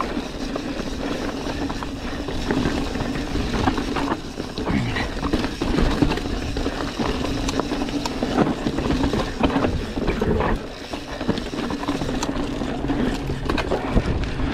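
Mountain bike riding fast down a rocky dirt trail: tyres rolling over dirt and loose stones, with frequent knocks and rattles from the bike over the rocks and a steady hum underneath.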